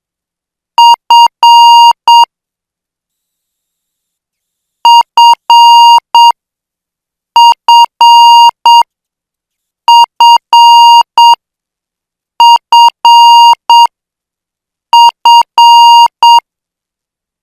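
Morse code practice tone sending the letter F (dit-dit-dah-dit) six times over, at 8 words per minute, with a pause of over a second between letters.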